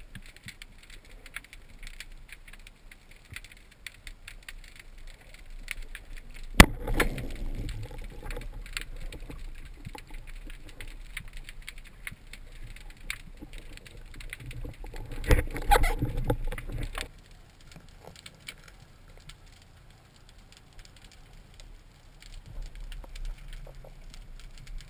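Underwater sound on a spearfishing dive: steady fine crackling and clicking, with one sharp snap about six and a half seconds in, followed by louder low rumbling. A second stretch of louder rumbling noise comes around the middle and stops suddenly.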